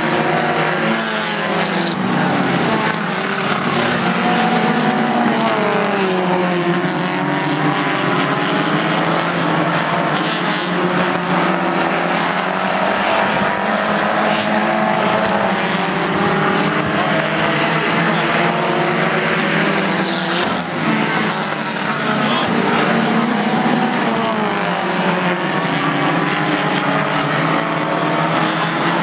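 A pack of stock cars racing together, several engines running hard at once, their pitch rising and falling as they pass and go through the turns.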